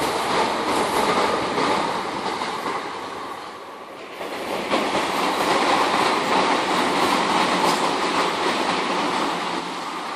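Southern electric multiple-unit passenger train running past at speed, its wheels on the rails making a continuous rushing noise. The noise dips briefly about four seconds in, swells again, and starts to fade as the last coach goes by near the end.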